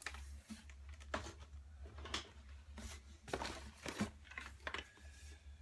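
Small items being handled and set down: a handful of irregular rustles and light knocks over a steady low hum.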